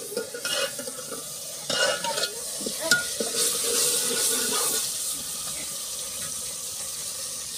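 A metal ladle stirs masala frying in an aluminium pot, which sizzles steadily. The ladle scrapes and clinks against the pot a few times in the first three seconds, and the sizzle is loudest a little past the middle.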